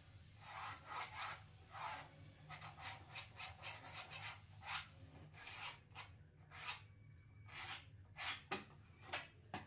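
Pen drawing on plywood, tracing a curved line along a bent steel ruler in a run of short, irregular strokes.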